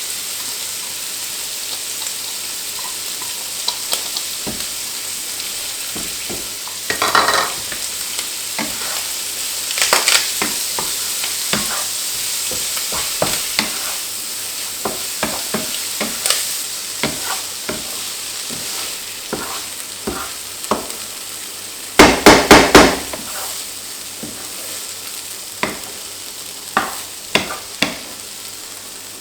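Food sizzling in hot oil in a wok on high heat, with sharp pops and a wooden spatula stirring and scraping against the pan. About twenty-two seconds in there is a short run of loud knocks from the spatula against the wok.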